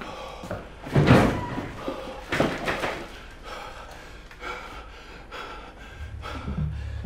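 Two heavy slams, like a door banging, about a second and a half apart, each with a short ring of echo. A low drone comes in near the end.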